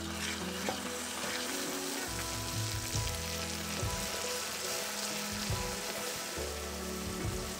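Hot caramel sizzling and bubbling up as warm cream is poured into it and stirred with a silicone spatula in a saucepan. The hiss starts as the cream goes in and keeps going.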